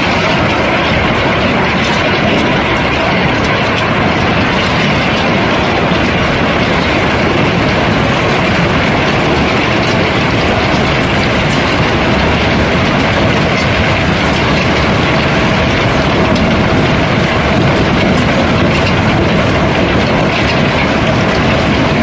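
River cobblestones pouring out of a barge hold through a discharge opening, a dense, continuous clatter of stone on stone, with a faint steady hum underneath.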